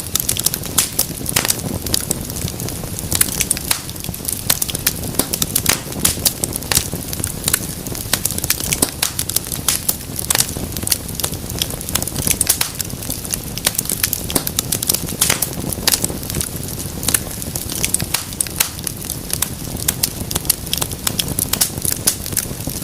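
Wood fire burning in a fireplace: irregular sharp crackles and pops, several a second, over a steady low rumble of flame.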